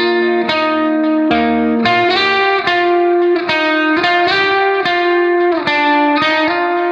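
Background music led by a plucked guitar, with a new note or chord struck about every half second.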